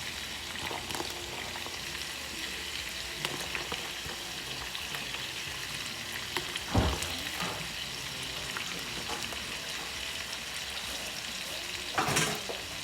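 Ribeye steaks with peppers and onions sizzling steadily in a skillet, the pan just deglazed with liquid aminos so the vegetables steam in the fat, with a continuous crackle of small pops. A single low knock comes about halfway through, and a brief louder scrape-like rustle near the end.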